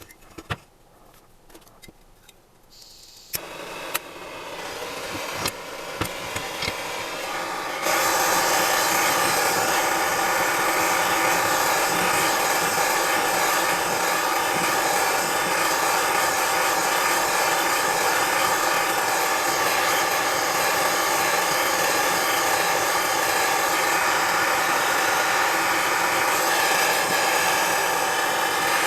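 A few light clicks, then a motor-driven machine or power tool starts up, building over several seconds and running with a loud, steady whir from about eight seconds in.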